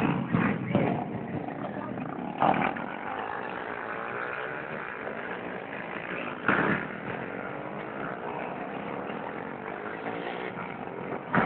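Several small motorcycle engines running and revving together, with short louder bursts near the start, about two and a half seconds in and about six and a half seconds in.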